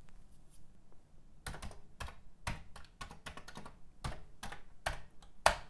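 Keys being pressed on a Commodore 64 keyboard to type in a command: about a dozen separate clacks at an uneven pace, with one louder press near the end.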